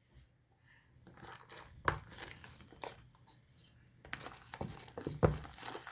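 Sticky homemade slime being kneaded and pulled by hand: irregular soft clicks and crackles, starting about a second in.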